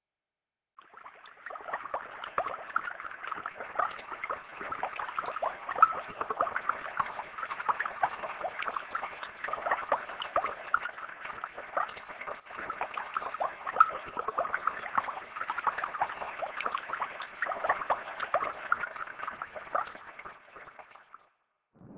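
Dense crackling and scratching made of many small, irregular clicks, a sound-design part of the projection show's soundtrack, starting about a second in and stopping shortly before the end. A low rumble swells in at the very end.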